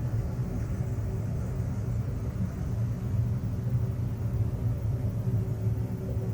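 Steady low droning rumble with a faint steady hum above it: a 'space sound' of Saturn, electromagnetic (radio) emissions recorded by spacecraft and converted into audible sound.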